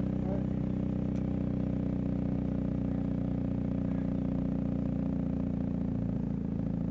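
An engine running at a steady speed, giving a low, even drone.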